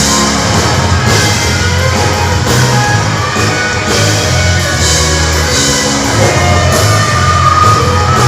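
Loud rock music: a band playing steadily, with heavy bass and cymbal crashes recurring through it.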